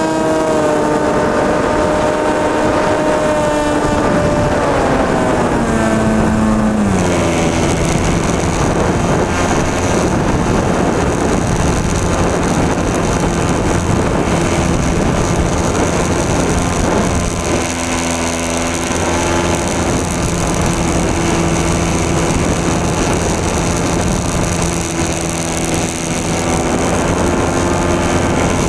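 Brushless electric motor and propeller of an RC plane running, heard from the camera on board the plane over a rush of wind noise. The motor's pitch slides down over a few seconds near the start, then holds steady with a high whine, wavering briefly around the middle.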